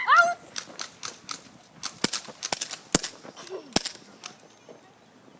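Airsoft guns firing a string of about a dozen sharp, irregularly spaced shots that stop about four seconds in. A brief high-pitched cry comes at the very start.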